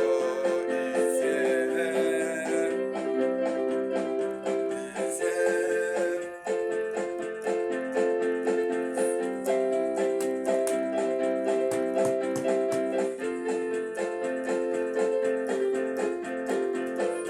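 Instrumental keyboard music: electric piano playing held chords that change every second or two, without singing.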